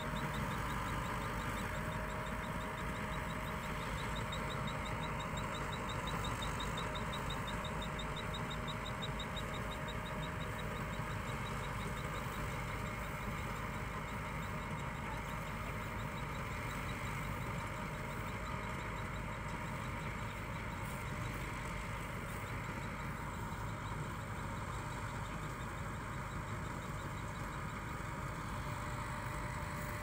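Combine harvester's engine running steadily.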